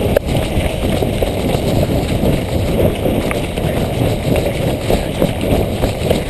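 Someone running: quick, uneven footsteps and gear jostling close to the microphone over a heavy rumble.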